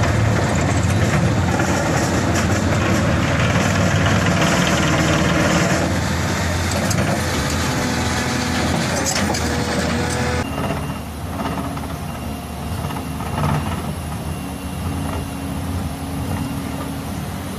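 Excavator-mounted vibro ripper shaking against rock with a dense, loud vibrating rattle over the excavator's diesel engine. About ten seconds in it changes abruptly to a quieter, steadier drone of large excavator engines at work.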